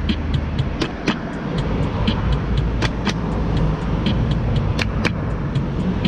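Road traffic passing as a steady rumble, under a light regular ticking about four times a second and a sharper pair of clicks every two seconds or so from the keyboard's rhythm track.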